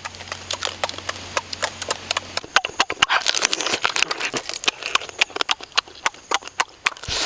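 Close-up eating sounds of cooked crab being bitten, chewed and sucked from the shell: a quick run of wet smacks and crunching clicks.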